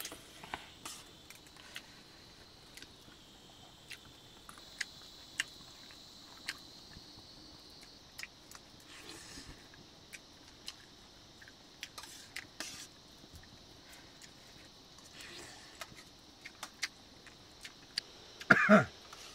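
Metal spoons clicking and scraping against metal plates as rice is eaten, in scattered irregular clinks. Near the end comes one brief, loud, pitched call or voice.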